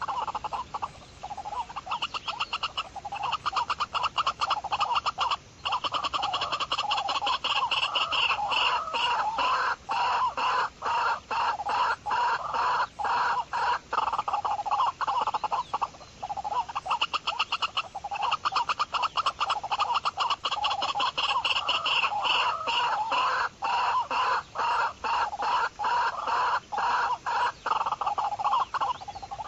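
Pheasant clucking calls repeated rapidly in two long runs, with a short pause about halfway through.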